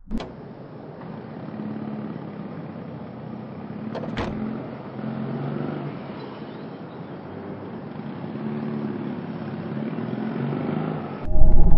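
Steady outdoor street ambience with a hum of vehicle traffic, and a brief sharp sound about four seconds in. Loud music cuts back in near the end.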